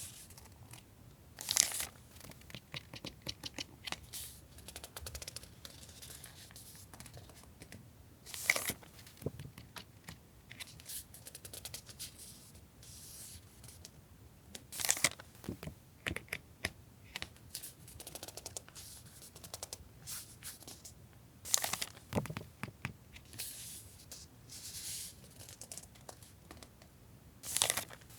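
Close-up rustling, crinkling and tearing of paper and packaging as paper goods are handled, with about five louder rips or crinkles spread through.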